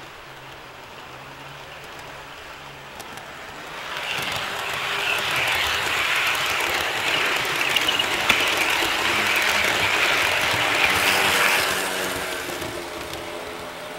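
HO scale model push-pull train rolling past close by: a steady rush and rattle of its metal wheels on the track, with a few clicks. It builds about four seconds in and fades near the end, after the F59PHI locomotive pushing at the rear has gone by.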